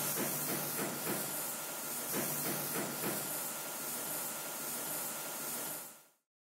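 Gas torch flame hissing steadily as it heats a metal strip, with a few scattered knocks and clicks. The sound fades out near the end.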